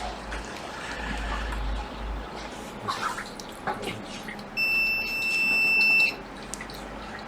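Multimeter continuity beep: one steady high-pitched tone about a second and a half long, starting about halfway through, after a few light taps. The beep signals that the line being probed is connected.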